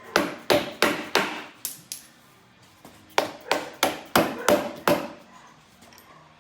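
Hammer blows on a metal socket, two runs of about six sharp, ringing strikes with a pause between them: a 7mm socket being hammered onto a rusted valve cover bolt on a 5.7 Hemi to bite and break it free.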